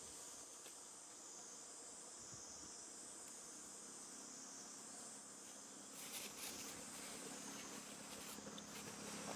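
Faint, steady insect chorus, a high buzzing hiss that slowly swells and eases. From about six seconds in, light rustles and clicks join it.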